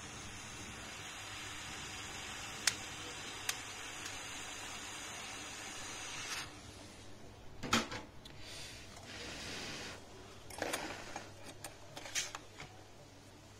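Hot-air rework gun blowing with a steady hiss as it reflows the solder balls on a BGA reballing stencil. The hiss cuts off suddenly about six seconds in. A few sharp clicks and knocks follow as the metal stencil and tweezers are handled.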